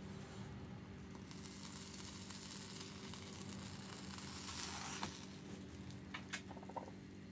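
A strawberry sponge cake being loosened with a utensil and peeled up off the bottom of a nonstick frying pan: a soft scraping hiss that grows for a few seconds, then a few light knocks as it is set back down, over a steady low hum.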